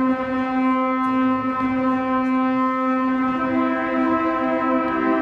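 Church organ starting suddenly on a loud held note, with a second, higher note joining about three seconds in, both sustained.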